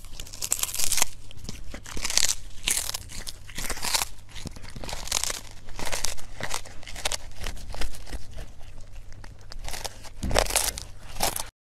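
A kitten biting and chewing on a small whole fish, giving irregular crunches about once or twice a second with small clicks between them. The sound cuts off suddenly near the end.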